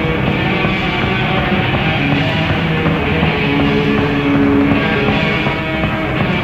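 Loud rock music, continuous and steady.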